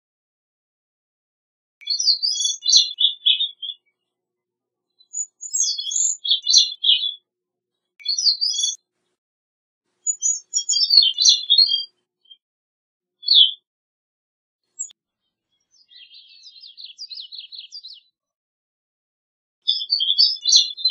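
Gray-cheeked thrush singing: repeated high-pitched song phrases, each one to two seconds long with pauses between, several sliding down in pitch. A single short note comes about two-thirds through, and a fainter, rapid trill about three-quarters through.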